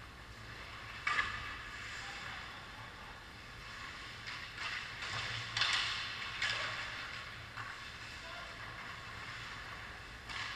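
Ice hockey play on an indoor rink: a steady hiss of skates on the ice, with a few sharp knocks of sticks and puck, over a low steady hum.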